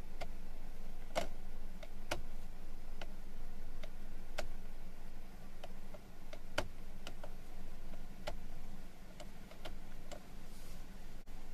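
Clicks of the 2019 Cadillac XTS's turn-signal and headlight stalk being worked by hand, as the lever is moved and its headlight switch ring turned through its detents. About fifteen sharp clicks come at uneven intervals over a faint steady low hum.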